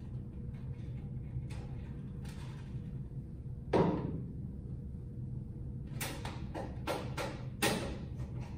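Hands working on a stripped fluorescent troffer fixture: a single loud clunk about four seconds in as a part is set down, then several sharp clicks and knocks of tools and wiring against the fixture's sheet-metal housing, over a steady low room hum.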